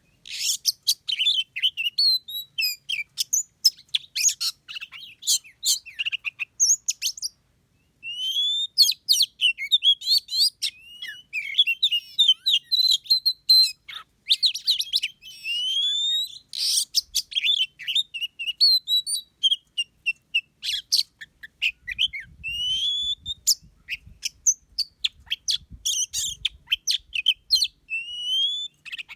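Songbirds calling: a dense stream of short, high chirps and whistled notes, many overlapping, with a brief break about seven and a half seconds in. A faint low rumble sits under the calls for a few seconds near the end.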